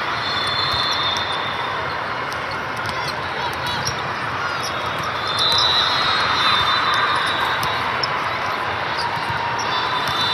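Volleyball match sound in a gym: a steady murmur of players and spectators, with the sharp knocks of the ball being hit and bouncing on the hard court.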